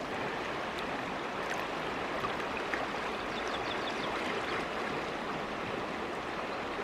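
River running high and fast over rapids: a steady rush of water. The speaker takes the high water to be spring snowmelt from the mountains.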